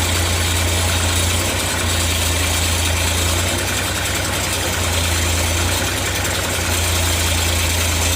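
Sawmill engine running at a steady speed, with a strong low hum.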